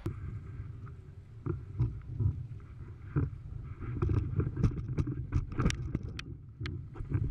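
Low rumble of wind and rushing water on a board-mounted action camera as a windsurf foil board skims over choppy water. Many sharp splashes and ticks of chop and spray strike the board and camera, growing thicker in the second half.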